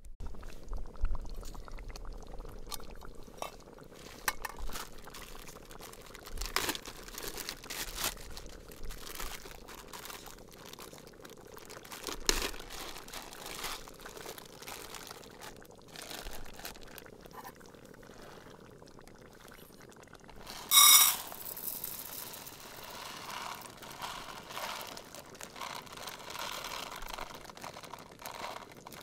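Clicks and knocks of aluminium camp cookware and a plastic food bag being handled. About two-thirds of the way through comes one loud, bright ringing clink of metal on metal. Near the end, dry food is tipped from a zip bag into a metal mug.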